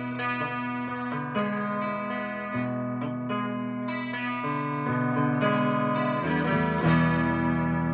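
Modded solid-body 12-string electric guitar strummed in a run of clean chords through a Boss Katana amp, a new chord struck about every second and left ringing.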